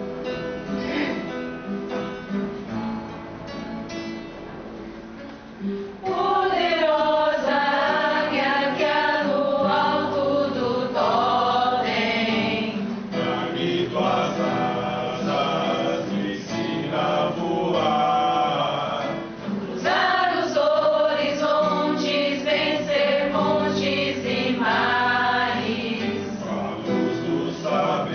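Small choir singing a hymn-like song to acoustic guitar accompaniment. The guitar plays alone at first, and the voices come in about six seconds in.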